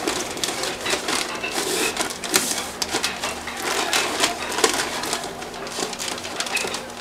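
Brown paper wrapping crinkling and rustling in quick, irregular crackles as a bundle is wrapped and tied with string.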